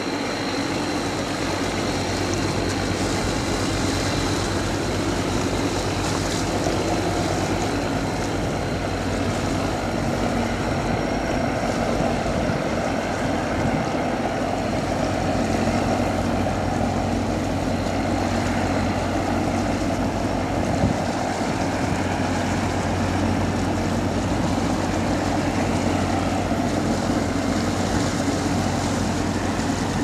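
A river cargo boat's diesel engine running steadily at a constant low pitch as it passes close by, with water rushing from its bow wave.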